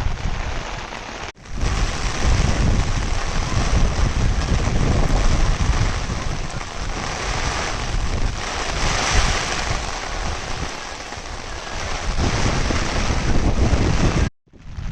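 Heavy monsoon rain falling, with wind gusting and buffeting the microphone in a heavy low rumble. The sound breaks off for a split second twice, about a second and a half in and near the end.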